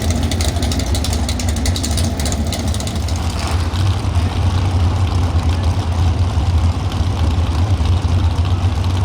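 Pro stock 4x4 pulling truck's engine idling with a steady deep rumble, with a light rapid crackle over it for the first few seconds.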